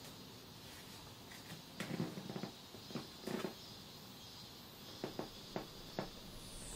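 Faint steady hiss with a scattering of short, soft clicks and taps, several together about two seconds in and a few more near the end.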